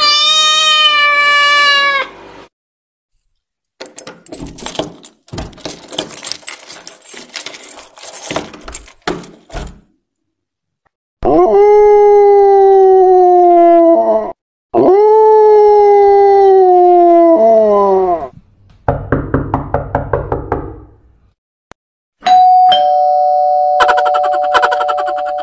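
A string of sounds played for a dog: a loud pitched call at the start, a stretch of scattered clicks and rustling, two long falling calls, a short rapid buzzing rattle, then a two-tone ding-dong doorbell chime that holds to the end.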